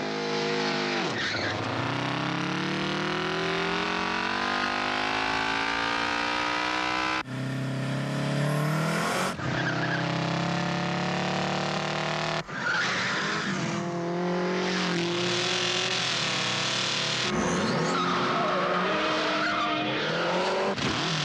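Engines of a high-speed chase revving hard, their pitch sweeping up and down and changing abruptly at several edits, with tyre squeal.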